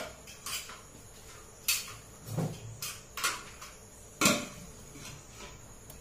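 Metal kitchen utensils and pans being handled on a gas stove: a string of about eight knocks and clinks, the loudest a little past four seconds in.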